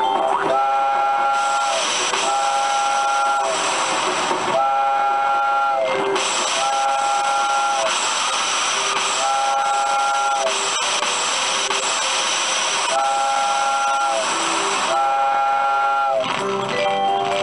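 Coin-operated steam train kiddie ride playing its recorded sound effect: a chord steam whistle tooting again and again, each toot about a second long, over a steady hiss of steam. The whistle stops near the end and other electronic tones take over.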